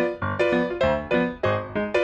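Background music: a piano playing a run of single struck notes, a few each second, each fading before the next.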